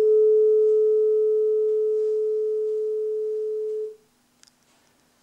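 A 440 Hz tuning fork on a wooden resonance box, slightly detuned by a rider clamped on its prong, rings a single steady pure tone after being struck, fading slowly. About four seconds in it is damped by hand and cuts off suddenly.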